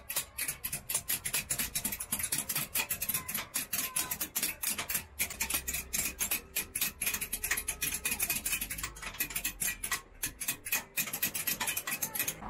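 Rapid, uneven metallic tapping of small hammers striking hand-engraving chisels on copperware, several a second, with several craftsmen working at once. The taps break off briefly twice.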